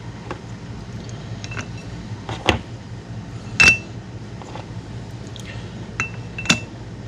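Metal CVT primary clutch parts clinking and tapping as they are handled and set in place during weight block installation: a handful of sharp, ringing clinks, the loudest about halfway through, with fainter taps between, over a steady low hum.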